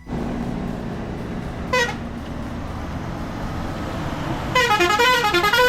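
Vehicle horn: a short toot about two seconds in, then a longer, loud warbling horn with a quickly wavering pitch near the end, over a steady engine and traffic hum.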